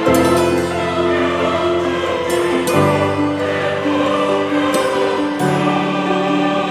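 Background music with choir-like voices holding sustained chords, the chord changing every two to three seconds.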